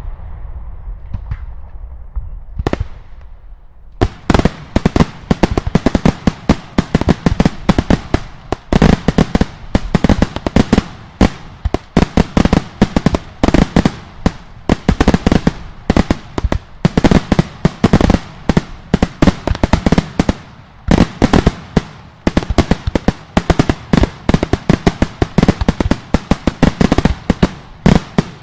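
Daylight fireworks: after the fading rumble of a blast and two single bangs, a dense barrage of loud, sharp explosions starts about four seconds in and continues, many bangs a second, with heavier booms among them.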